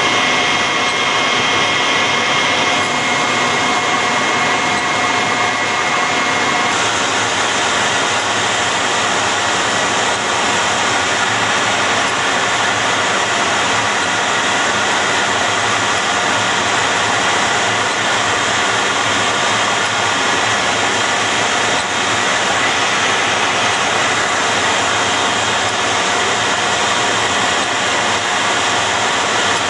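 Jet engines running on an aircraft carrier's flight deck: a loud, steady hiss with high, steady whining tones. About a quarter of the way in the sound shifts: the highest whine drops out and the hiss grows.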